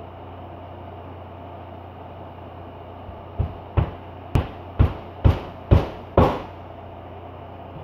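A dog licking a cat: a run of seven short, wet licks about two a second, starting about halfway in, over a steady low hum.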